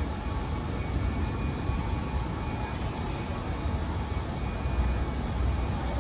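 Steady outdoor city ambience: a low rumble under a haze of background noise, with no distinct events.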